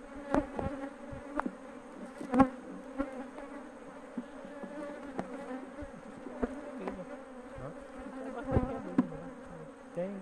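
Honeybees buzzing steadily around an open wooden hive, with a few sharp knocks of wooden frames and a hive tool against the box, the loudest about two seconds in.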